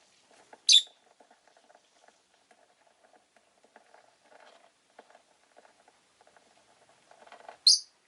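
Rosy-faced lovebird giving two short, loud, shrill chirps, one about a second in and one near the end, with faint rapid clicking and soft chatter in between.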